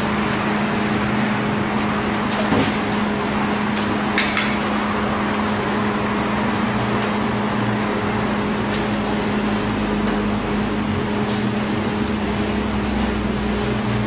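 A steady machine hum with a constant pitch, with a few light clicks and knocks, the clearest about two and a half and four seconds in, from handling test leads and a tester case.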